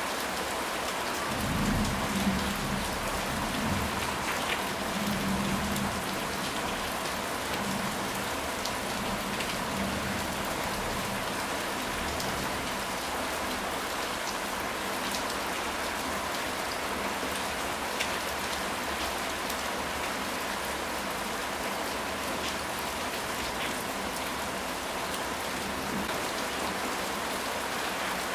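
Steady rain falling, an even hiss with scattered drop ticks. A low rumble of thunder swells and fades from about two to six seconds in.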